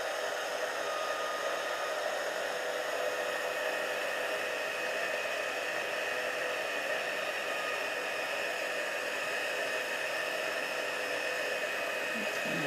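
Embossing heat tool running steadily, a rush of blown hot air with a faint steady hum, melting gold embossing powder on a cardstock tag.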